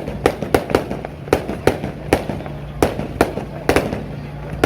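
Fireworks going off in a rapid, irregular string of sharp bangs and pops, about three a second, over a steady low hum.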